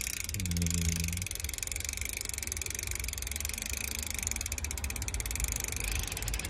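Bicycle rear freehub ticking rapidly and steadily as the chain is run backwards, the pawls clicking over the ratchet while the cranks are backpedalled.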